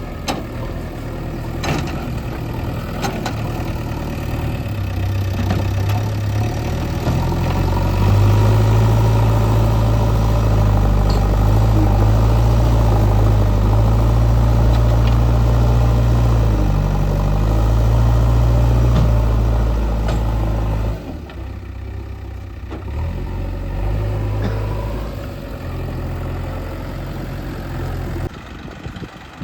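Heavy diesel engine running. About eight seconds in it gets louder and stays working hard for some thirteen seconds, then drops suddenly back to a lower, idling level.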